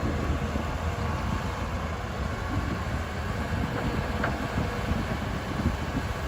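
Excavator's diesel engine running with a steady low rumble.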